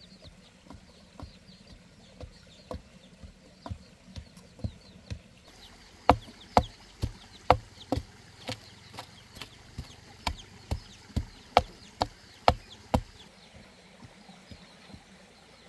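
A wooden stick striking the soil as it tamps earth around the base of a bamboo post, in a steady rhythm of about two strikes a second. The strikes get louder about six seconds in and stop about two seconds before the end.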